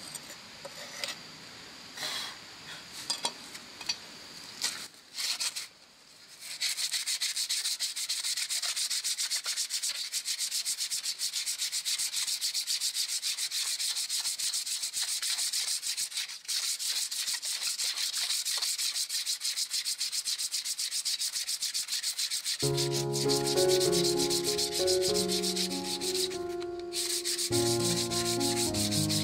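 Charred wooden sign board being sanded by hand, a steady, dense scratchy rubbing that sets in after a few seconds of short scrapes and clicks from a knife blade working the wood. Near the end, a run of steady musical notes comes in beneath the rubbing.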